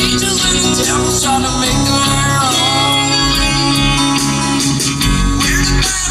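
Guitar music with a heavy bass line playing loud on a car stereo driving a newly installed JBL subwoofer, heard inside the cabin.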